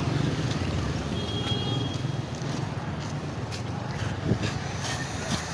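Street traffic: vehicle engines running close by with a steady low hum, over a general hubbub of street noise with scattered clicks and knocks.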